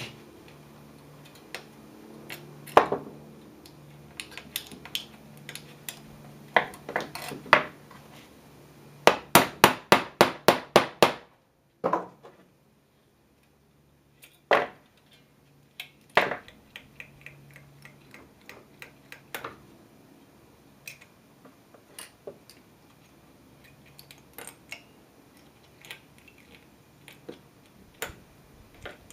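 Scattered wooden and metal knocks and clicks from working a beehive-frame wiring jig with a frame clamped in it, with a quick, even run of about a dozen taps about nine seconds in.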